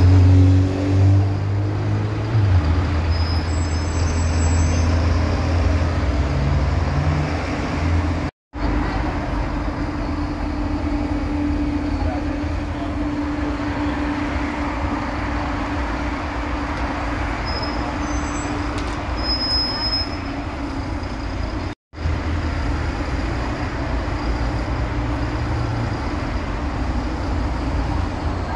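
City bus diesel engines running at a bus stop, a steady low engine hum over street traffic, in three short shots broken by two brief silences at the cuts. The last shot is of a Mercedes-Benz Citaro.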